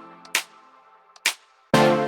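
Electronic background music: a chord dying away, two short percussive hits, then a loud synth chord coming back in near the end.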